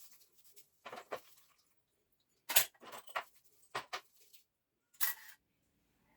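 A string of separate sharp knocks and clatters, irregularly spaced, the loudest about two and a half seconds in, like hard objects being handled and set down.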